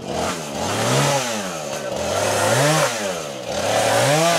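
Two-stroke chainsaw engine revving up and dropping back again, about three times, with the pitch climbing and falling each time.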